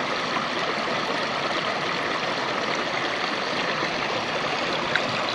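River water flowing steadily past the bank, a continuous even rushing.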